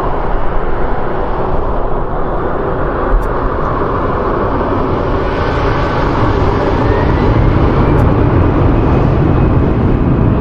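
Airbus A320-family airliner's jet engines running as it rolls along the runway: a steady rushing noise that grows louder about halfway through, with a faint rising whine.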